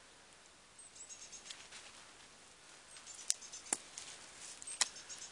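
Quiet outdoor sound: faint, rapid, high ticking or twittering from about a second in, with three sharp clicks or snaps in the second half.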